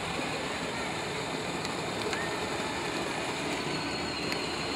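Battery-powered Power Wheels Jeep Wrangler ride-on toy driving on asphalt: the steady rumble of its hard plastic wheels on the pavement and the hum of its gear motors.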